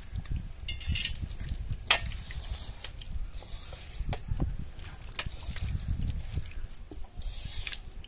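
A hand mixing chicken pieces into a thick, wet ground-masala paste in a metal vessel: irregular squelching and squishing, with small clicks and scrapes against the pot and one sharper click about two seconds in.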